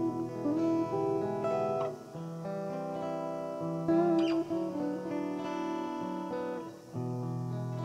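Closing theme music led by guitar, with held notes that change every half second or so and a brief drop about seven seconds in.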